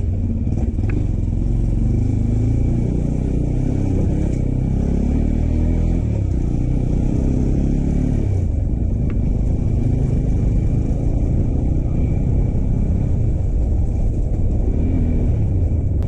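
Motorcycle engine running steadily while riding, heard from on the bike.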